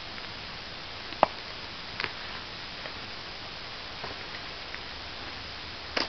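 Thin river ice cracking in sharp scattered snaps: a loud one about a second in, a double snap at two seconds, then fainter ticks, over a steady hiss. The speaker puts the cracking down to birds landing on the thin, poorly formed ice.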